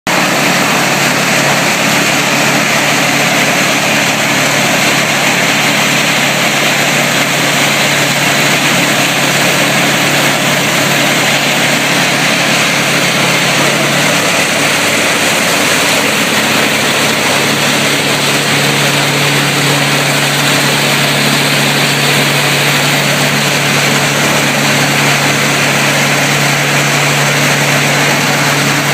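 Caterpillar diesel engine of a Morbark 1100L tub grinder running steadily at speed, with a loud even machine din; its pitch steps up slightly about halfway through.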